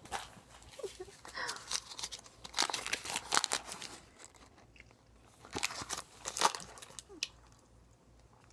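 Dum Dums lollipop wrapper crinkling as it is handled close to the microphone, in three short crackly bouts.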